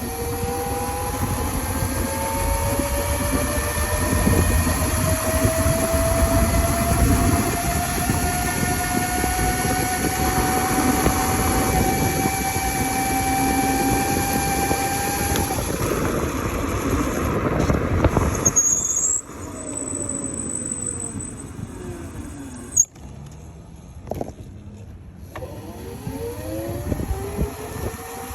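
Electric mini motorbike's motor whining, its pitch climbing slowly as the bike speeds up, over rushing wind noise. About two-thirds through the sound drops away, a sharp knock follows, and the whine falls and then climbs again near the end.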